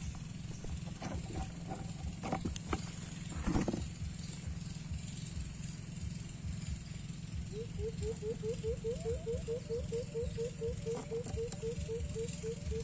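Wind rumbling on a phone microphone, with a few brief rustles of eggplant leaves being handled early on. About halfway through an animal starts calling, a steady string of short rising chirps at about four a second, and keeps it up until near the end.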